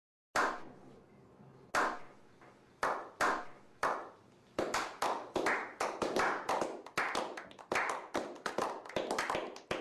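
A series of sharp clap-like hits, each with a short fading tail, at first spaced a second or more apart and then quickening to about three or four a second.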